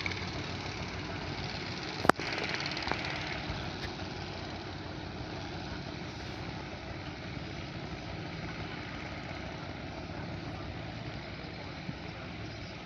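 A wooden pompong boat's engine running steadily at low speed as the boat passes, with water wash in the background. A single sharp click about two seconds in.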